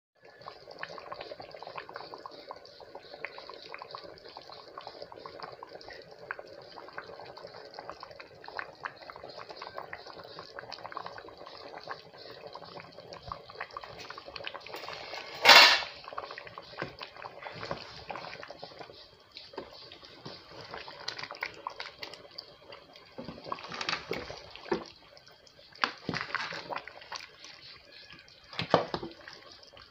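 A large aluminium pot of atama soup bubbling on the stove, a steady crackling liquid sound with many small ticks. One sharp, loud knock comes about halfway through, and in the last few seconds a wooden spoon stirs the soup, with scattered knocks and clicks against the pot.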